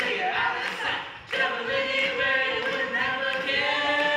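Stage cast singing together as a choir, with little instrumental backing. There is a short break about a second in, then the voices come back in on long held notes.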